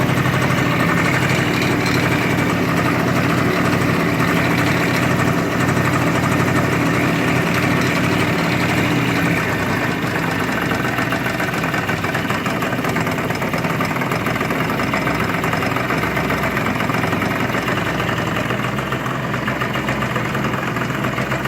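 Yamaha scooter engine idling steadily with no knocking. The earlier knock is cured now that the variator is tightened and the kick-start ratchet filed so the cover seats fully. The running eases slightly about halfway through.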